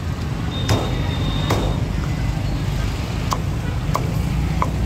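Cleaver chopping roasted pork on a thick wooden chopping block: about five sharp chops, unevenly spaced, over a steady rumble of street traffic and motorbikes. A thin high tone sounds for about a second near the start.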